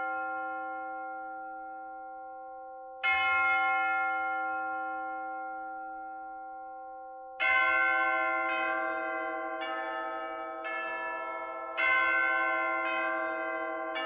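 Church bells ringing. Two single strokes about four seconds apart are each left to ring out, then from about halfway through, bells of different pitches are struck in turn about once a second, their rings overlapping.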